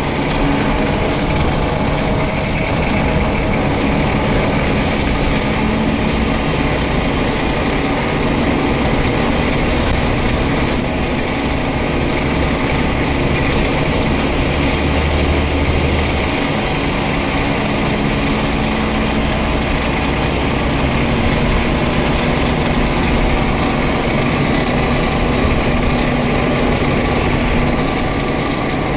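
Scania N94UD double-decker bus's 9-litre five-cylinder diesel running steadily, heard from inside the lower deck with a low engine drone and cabin rumble.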